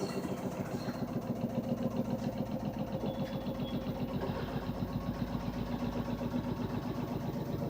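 LG washing machine running: a steady motor hum that pulses rapidly and evenly.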